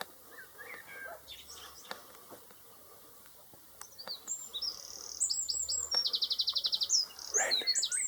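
A songbird singing from about halfway in: a quick run of high, varied notes with a fast trill in the middle, going on past the end. Fainter bird chirps come before it.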